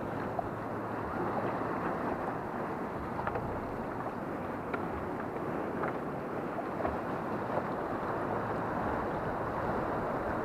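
Wind on the microphone and choppy water sloshing against a small skiff: a steady rush with a few faint clicks.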